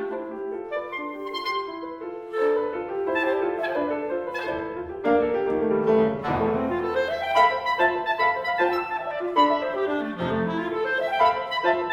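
Clarinet and piano playing together in a busy passage of quick, rapidly changing notes, growing louder about halfway through.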